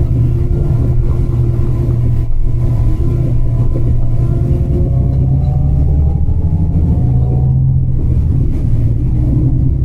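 Steady low rumble of a moving vehicle heard from inside, with a faint whine that slowly rises in pitch about halfway through.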